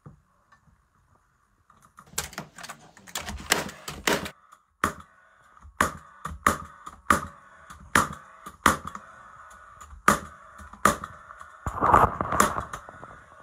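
Hammer knocking new replacement floorboards down into place as final adjustments: a string of sharp, irregular blows, about one to two a second, starting about two seconds in.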